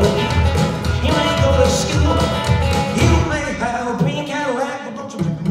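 Background music with a steady bass beat, about two beats a second, and a melody line over it.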